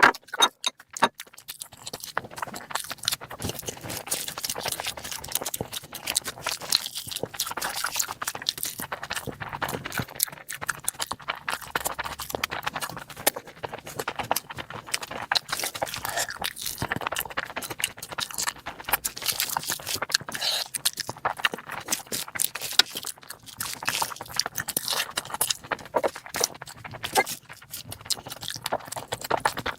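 A person eating curry with rice: chewing with many quick, irregular wet clicks and smacks.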